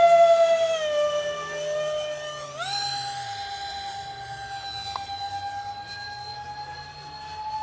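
Electric ducted-fan drive of a radio-controlled Su-35 jet model whining at a steady pitch. The pitch sags about a second in, then jumps sharply higher about two and a half seconds in as the fan spools up, and keeps creeping slowly upward.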